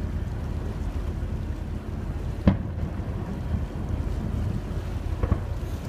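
Steady low rumble of a ferry boat under way, with wind on the microphone. Distant fireworks bang across the water: a sharp report about two and a half seconds in and a fainter one near the end.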